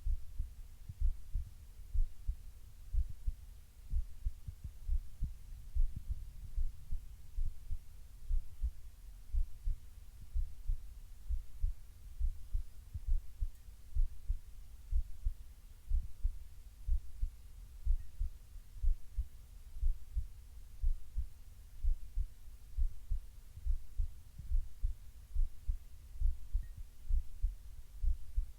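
Human heartbeat, recorded with the person lying on the left side: steady, regular low thumps, about one beat a second.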